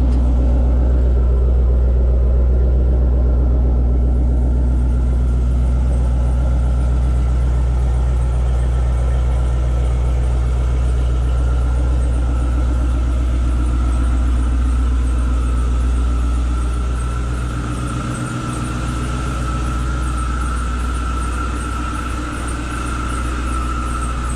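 2013 Dodge Challenger R/T's 5.7-litre Hemi V8 idling steadily after a cold start, its level easing slightly down a little past halfway.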